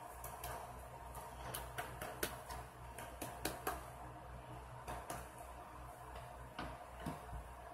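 Faint clicks and light scraping of plastic as a trading card is handled in a clear rigid top loader, with a few sharper ticks about two to four seconds in. A steady low hum runs underneath.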